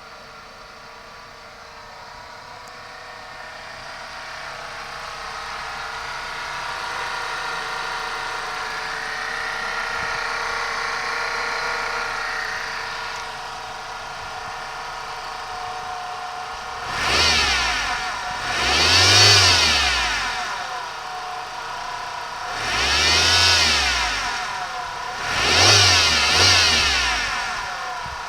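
Suzuki Baleno 1.8 GTX's 1.8-litre four-cylinder engine idling, then climbing slowly in speed and holding for several seconds before settling back; in the second half it is blipped in a series of short revs that rise and fall, the last two in quick succession. The owner hears a weird sound from this engine.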